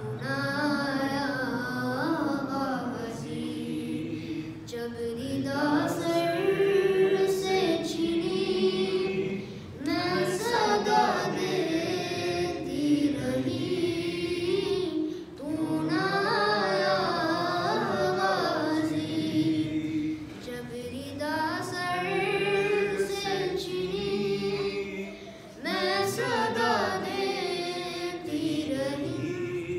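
A boy's voice chanting a melodic recitation into a microphone, in about six long phrases with short breaths between them.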